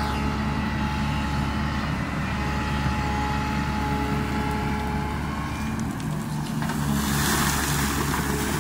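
Yutong YT210.8 crawler excavator's diesel engine running steadily as it digs, with a thin steady whine over the low drone. In the last second or two, a harsh scraping rush as the bucket digs into wet riverbed gravel.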